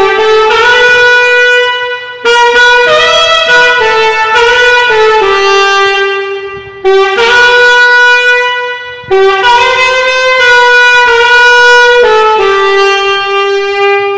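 Solo alto saxophone playing a slow worship melody in long held notes, in four phrases with short breaths between them.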